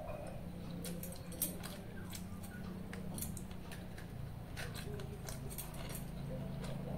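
Food being mixed and picked up by hand on a steel plate: irregular light clicks and scrapes against the metal, over a low steady hum.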